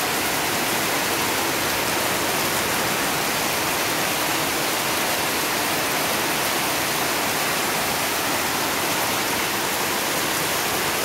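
Heavy monsoon rain falling steadily as a dense, even hiss.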